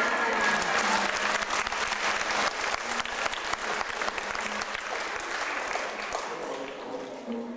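Audience applauding, a dense patter of many hands clapping that fades near the end.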